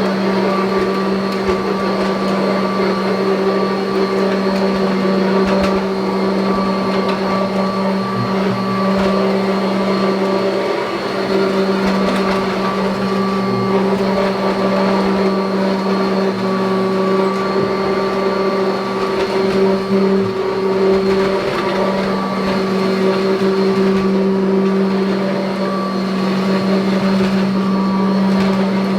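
1984 Kirby Heritage upright vacuum cleaner running steadily, its motor holding a constant-pitched hum and whine.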